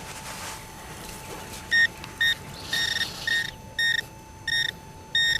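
Handheld metal-detecting pinpointer probe beeping as it is worked down a hole toward a buried target. About two seconds in, short beeps start, coming longer and closer together, then running into a continuous tone near the end as it homes in on the find.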